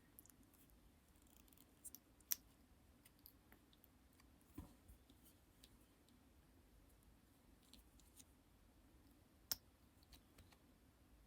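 Lipstick handled close to the microphone: faint, scattered sticky clicks and light taps, with two sharper clicks a couple of seconds in and near the end, and a soft thud in between.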